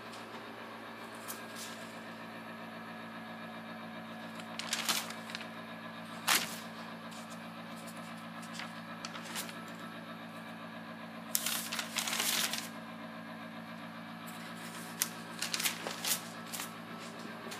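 Steady low hum made of several even tones, with scattered clicks and rustles on top: a sharp click about six seconds in and a longer rustle around twelve seconds.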